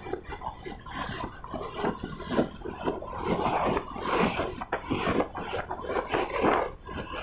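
Many animals calling at once, their short calls overlapping in a continuous din.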